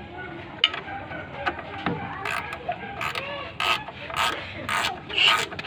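Hand work on metal truck parts: a sharp click, then a run of short scraping strokes about two a second, consistent with a fuel filter assembly being worked on and tightened.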